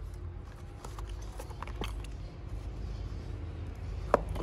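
Light taps and knocks of a small cardboard milk carton handled by a baby macaque on a concrete ledge, with one sharper knock near the end, over a low background rumble.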